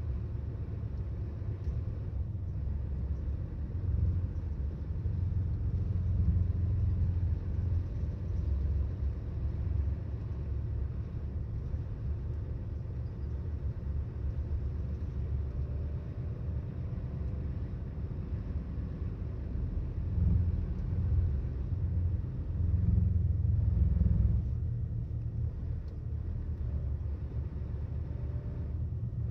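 Diesel engine of a 2009 Volvo 8700 bus, heard from inside the bus as a steady low rumble that swells louder twice, a few seconds in and again about two-thirds of the way through.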